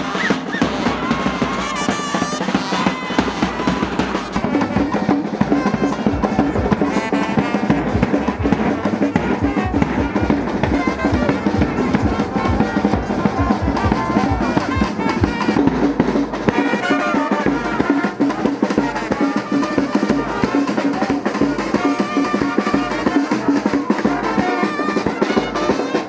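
Brass band playing with a steady beat on snare and bass drums.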